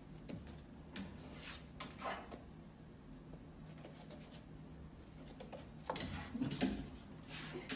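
A puppy's paws scratching and scrabbling against a painted wall: soft scrapes and taps, louder around six seconds in.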